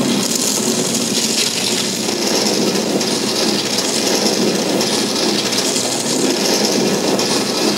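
Large black prop boulder ball rolling across a concrete stunt-show yard: a loud, steady rumble.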